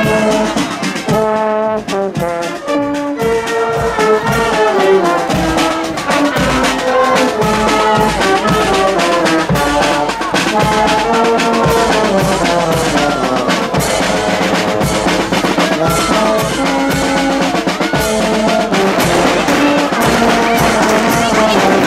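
Band of brass and woodwind instruments playing a tune, the melody moving in short stepped notes over a steady accompaniment.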